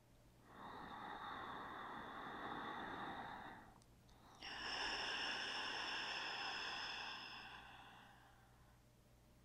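A woman's slow, deep breath: a long inhale of about three seconds, a short pause, then a longer, slightly louder exhale that fades out.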